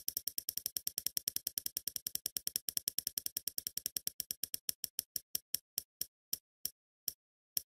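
Spinning prize-wheel ticking sound effect: sharp clicks at about nine a second that slow steadily to about two a second near the end as the wheel winds down.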